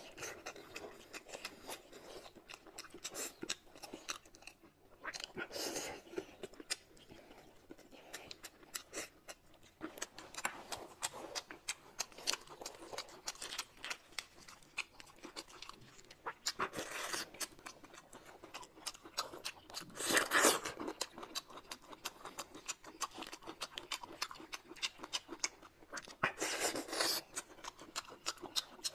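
Close-miked eating sounds: wet chewing with many small clicks and crunches, broken about five times by a louder, second-long slurp of noodles.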